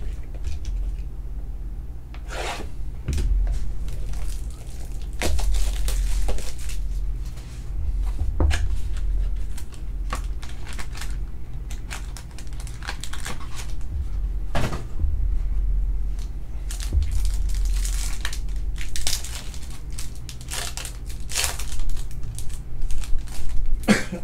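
A trading-card pack being opened and handled by hand: tearing and crinkling of the packaging and cards sliding and rubbing, in short bursts, with dull bumps against the table.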